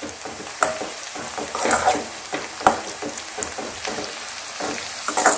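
Metal slotted spoon scraping and tapping against an aluminium kadai in irregular strokes as instant noodles are stirred, over the sizzle of the cooking noodles.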